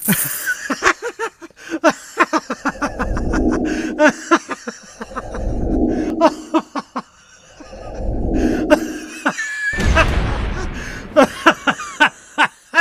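A person laughing in rapid bursts of short pitched 'ha's that rise and fall, broken by four stretches of low, rough, breathy noise of about a second and a half each.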